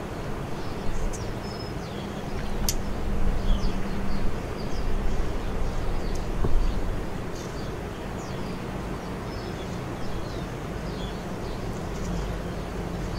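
Steady low background rumble with scattered short, high bird chirps, and one sharp click about three seconds in.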